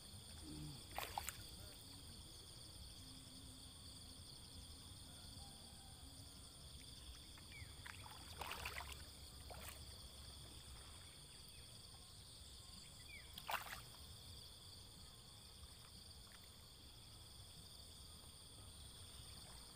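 Near silence by the water: a faint, steady high insect hum, broken by a few brief water splashes or sloshes, about a second in, around nine seconds and near thirteen and a half seconds.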